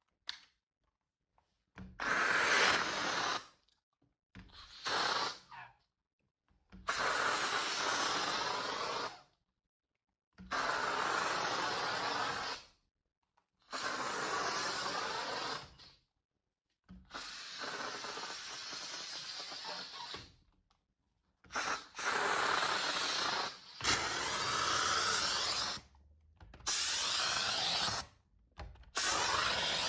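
Glass being cleaned: about ten separate stretches of steady scrubbing or suction noise, each two to three seconds long, broken by sudden silent cuts.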